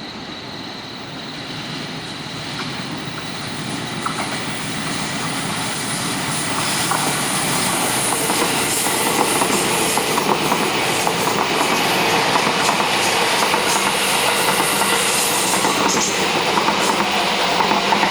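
Electric commuter train running on the rails, growing louder as it approaches and then staying loud, with the wheels clicking over rail joints.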